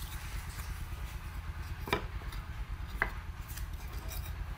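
Two short knocks of wooden boards being handled and set down on a workbench, about a second apart, over a steady low hum.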